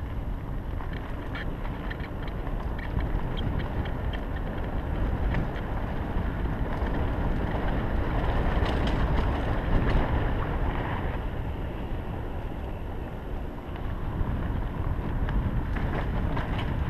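Mountain bike riding along a dirt singletrack: wind buffeting the microphone over the steady rumble of the tyres on the trail, with scattered sharp clicks from the bike.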